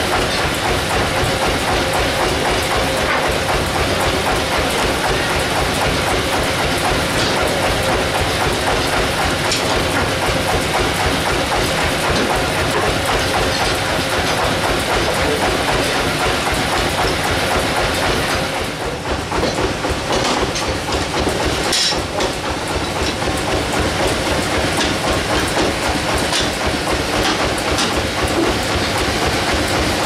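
Band sawmill machinery running with a steady, rhythmic clatter. There is a brief dip about two-thirds of the way in, followed by a few sharp knocks.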